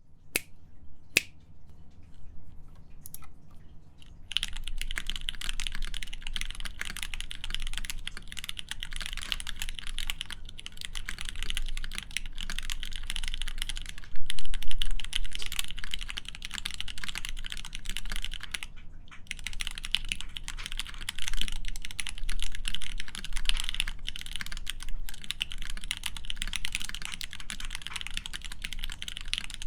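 Mechanical keyboard with lubed Everglide Crystal Purple tactile switches in an aluminium plate and GMK keycaps being typed on. A few single keystrokes come first, then steady fast typing begins about four seconds in, with a brief pause partway through.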